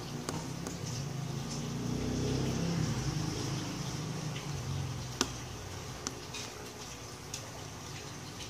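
A few light clicks of a small screwdriver on a phone's screws, over a steady hiss. A low hum swells and fades during the first few seconds.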